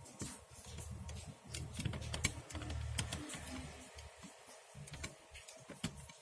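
A small toy van being handled on a tabletop: scattered light clicks and taps, with a low rumble from about half a second in to about three and a half seconds.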